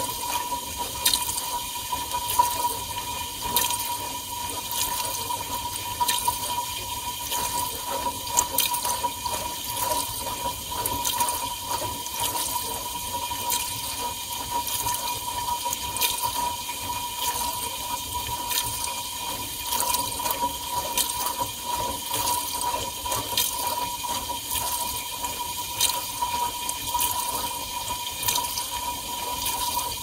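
Whirlpool dishwasher washing: water from its spray arms spraying and splashing inside the tub, heard from inside the machine, with many small splats and a steady whine over it.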